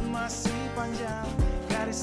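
Background music with a drum beat and a gliding melody line.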